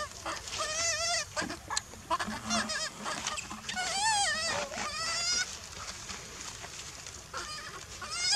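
Baby long-tailed macaque crying in distress: a run of high, wavering cries, loudest about four to five seconds in and fainter near the end.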